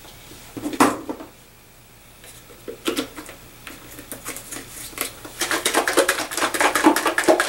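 Plastic spray bottle of conditioner and water shaken by hand, the thinned mix sloshing inside. A short shake about a second in, another near three seconds, then a longer run of fast shaking to the end. The freer slosh is the sign that the mix has loosened enough.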